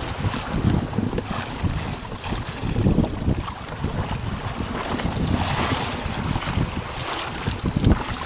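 Wind buffeting the microphone in uneven gusts over water rushing and splashing past the hull of a Hobie Adventure Island sailing kayak running downwind through swells. The water hiss swells a little past halfway.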